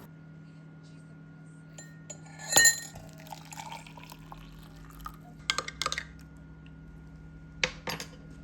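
Glassware and dishes being handled: a loud ringing glass clink about two and a half seconds in, then a few sharper knocks and clinks around the middle and near the end, over a steady low hum.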